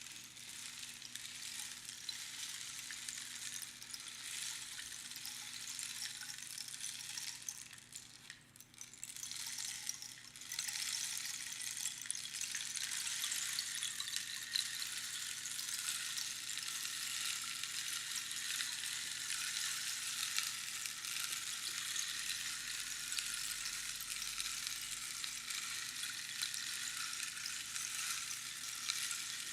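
Rainstick: small pebbles trickling down past the pins inside the hollow tube in a dense, even patter like falling rain. About eight seconds in, the cascade fades almost away, then starts again louder about two seconds later and runs on steadily.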